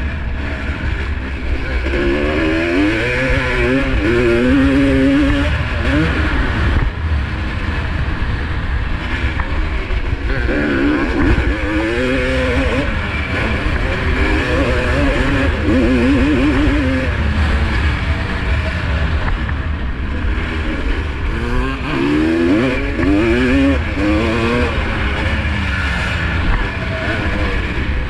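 Two-stroke motocross engine, a 1985 Honda CR250R single-cylinder 250, running hard under racing load. Its pitch climbs and drops back again and again as the rider works the throttle and gears, over a steady loud roar.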